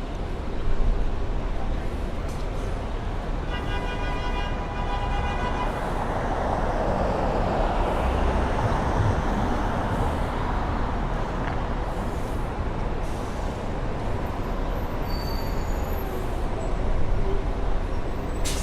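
Downtown street traffic: motor vehicles running and passing in a steady wash of noise that swells in the middle. A brief high whine from a vehicle comes in from about three and a half to six seconds in.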